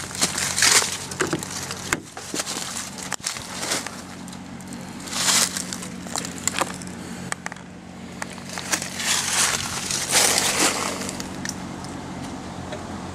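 Irregular crackling and rustling noises in short bursts, over a faint steady low hum.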